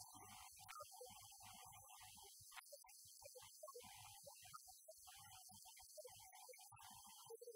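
Near silence: a faint, choppy electronic hum and hiss with no intelligible speech, like a badly degraded audio track.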